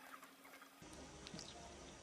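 Near silence: a few faint short squeaks and clicks in the first second, then a faint steady low hum that starts abruptly just under a second in.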